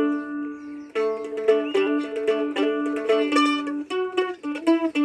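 Mandolin played solo: a chord rings out, then about a second in a quick run of picked melody notes follows.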